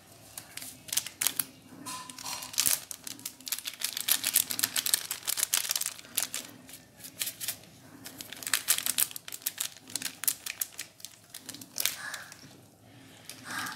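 Crinkling and rapid irregular clicking of a plastic spice packet being handled and shaken as meat masala is sprinkled into a pan of curry, coming in bursts.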